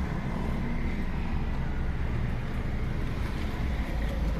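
Suzuki Ignis engine running at a steady idle, a low even hum.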